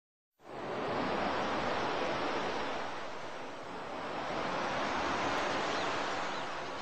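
Steady rushing of Baltic Sea surf and wind, starting about half a second in, even throughout with no distinct events.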